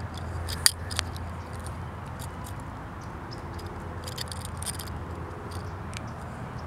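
Juvenile red-tailed hawk plucking and tearing at an American coot carcass: scattered short snaps and rips, the two sharpest close together about a second in, over a steady low rumble.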